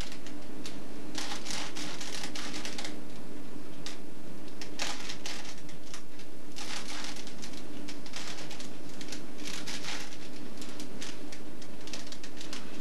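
Plastic puzzle cube being twisted by hand: quick runs of clattering clicks as its layers turn, in four or five bursts with short pauses between, over a steady low hum.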